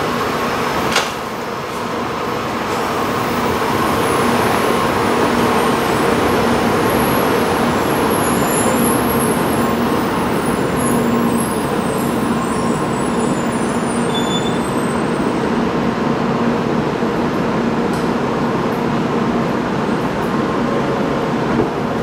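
Tokaido Shinkansen train coming to rest and standing at the platform, its electrical equipment giving a steady hum with several constant tones. The hum grows a little louder over the first few seconds and then holds steady, and there is one sharp click about a second in.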